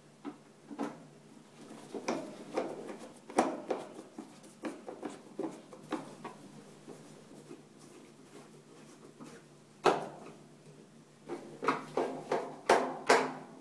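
Plastic rear cover of a twin-tub washing machine being fitted back on and screwed down with a screwdriver: irregular clicks, taps and knocks, with a sharp knock about ten seconds in and a quick run of louder knocks near the end.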